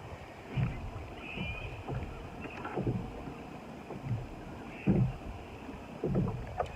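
Water sloshing and slapping against a kayak beside the hull, in irregular soft splashes about once a second.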